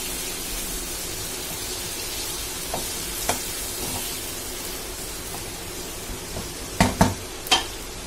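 Potato and brinjal pieces in a wet spice and poppy-seed gravy sizzling in a pan while a spatula stirs them, with a few light scrapes. Near the end come three sharp knocks of the spatula against the pan.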